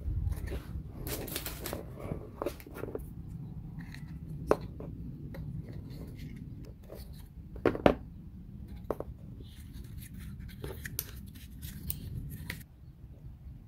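Small wooden puzzle pieces being handled and fitted together: a run of light clicks and taps, with a sharper knock about four and a half seconds in and two near eight seconds, over a low steady hum that cuts off near the end.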